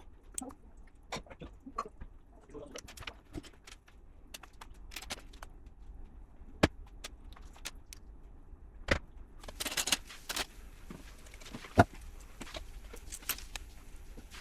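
Small plastic LEGO pieces clicking and clattering as they are handled and pressed together, with irregular sharp taps and a few louder clicks. About halfway through, a rustling starts up under the clicks and continues.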